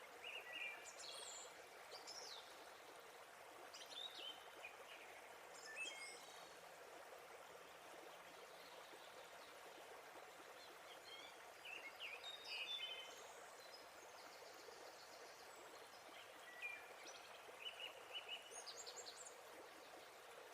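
Faint, steady rush of a waterfall, with songbirds chirping over it in short bursts of quick, high notes that come and go about five times.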